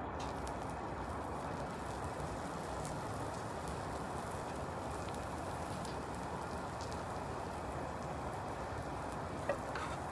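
Steady sizzling of food frying on a Blackstone flat-top griddle, with a couple of short clicks near the end.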